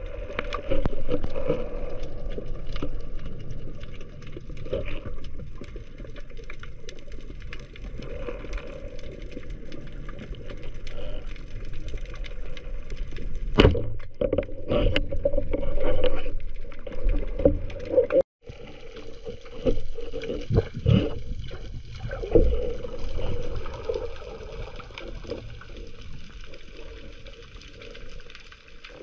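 Water sloshing and gurgling, with several sharp knocks.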